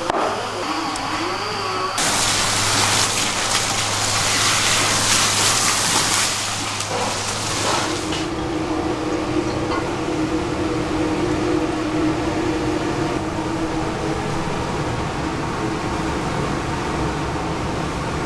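Commercial kitchen noise: a loud rushing hiss starting about two seconds in and lasting about six seconds, then a steady low rumble with a hum.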